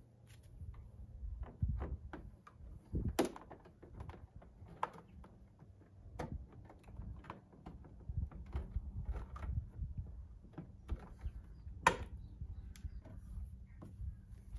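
ZunSport mesh grilles being pushed by hand into a Porsche 911's front bumper intakes: irregular clicks, taps and knocks as the tabs are pressed home, with two sharper snaps, one about three seconds in and another about twelve seconds in, over a low rumble.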